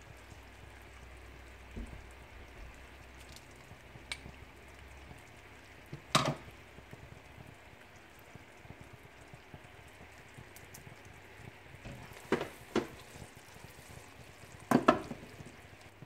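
Sugar-and-honey syrup boiling in a pot, a faint steady bubbling, still short of the stage where it sets into a ball in cold water. A few sharp short knocks break through: once about six seconds in and three more in the last four seconds.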